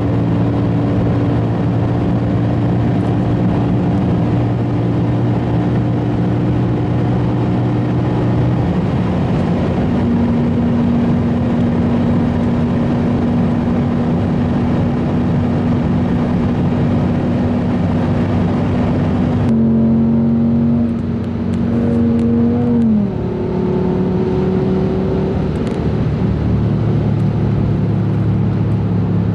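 Audi S8's 5.2-litre V10 heard from inside the cabin, pulling at full throttle at around 240–256 km/h over steady wind and tyre noise. About nine seconds in, an upshift from fifth to sixth drops the pitch, and the engine keeps pulling steadily. A little over twenty seconds in the engine note falls quickly as the revs drop, then runs steadily at a lower pitch.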